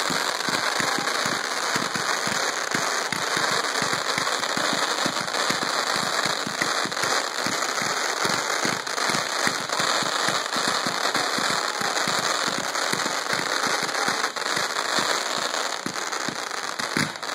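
Fireworks going off in a dense, unbroken barrage of rapid pops and bangs, steady in loudness throughout.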